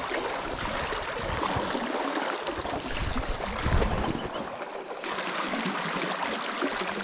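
Wind buffeting the microphone in irregular low gusts over choppy, lapping water.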